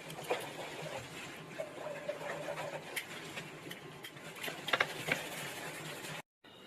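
Light scratching and small clicks of a hand tool working over a smartphone's frame, with a faint steady hum underneath; the sound drops out abruptly near the end.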